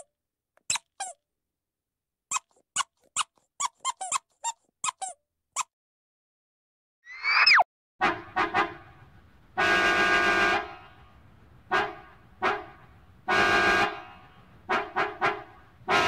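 A rubber squeeze toy squeaking in a quick run of short squeaks, then a brief whistling zing about seven seconds in. After that a large car horn sounds a series of short and long blasts.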